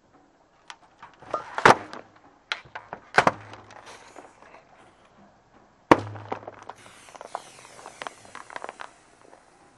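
Full aluminium drink cans bursting under a car tyre: sharp pops and crunches, the loudest about a second and a half in and just before six seconds, with smaller crackles between them. After the last big pop comes a high hiss of fizzing liquid spraying from the split cans, fading near the end.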